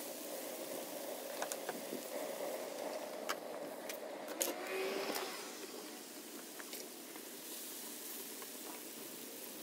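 Diced tomatoes and onions sizzling on a hot black steel disc, with a spatula scraping and tapping the metal every so often.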